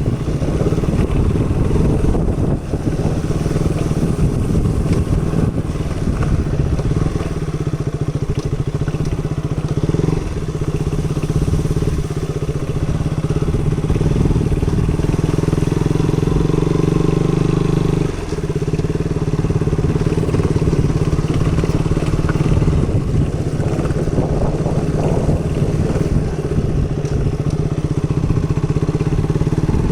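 KTM Duke 200's single-cylinder four-stroke engine running as the bike is ridden, its note rising and falling with the throttle. It holds one steady pitch for several seconds midway, then drops off suddenly about eighteen seconds in.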